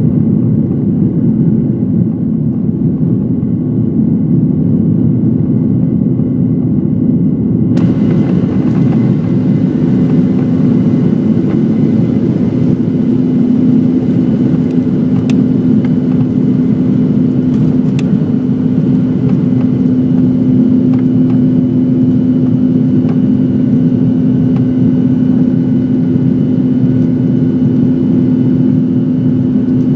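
Cabin noise of a Boeing 737-900 under takeoff power: the CFM56-7B turbofan engines and the rushing air make a loud, steady roar with a steady hum running through it.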